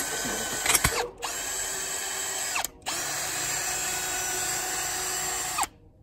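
Cordless drill driving the screw of a drill-powered log lift, backing it down: a steady motor whine in three runs, with short pauses about a second in and just before halfway, stopping shortly before the end.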